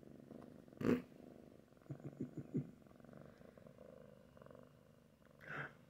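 Tabby kitten purring steadily, a low rumble held close to the microphone. A sharp knock about a second in is the loudest sound, and a quick run of four or five soft thumps follows a second later.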